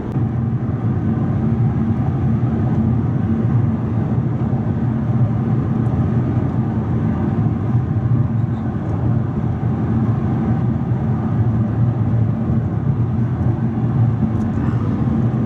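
Car driving on the road, heard from inside the cabin: a steady low drone of engine and tyres with road noise.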